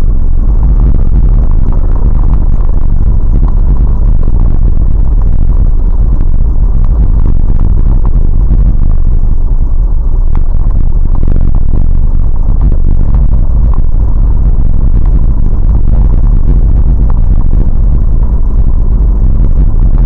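Vehicle driving over a snow-covered dirt track, heard from a dashboard camera inside: a loud, steady, deep rumble of engine and tyres, with light clatter and small knocks from the rough surface.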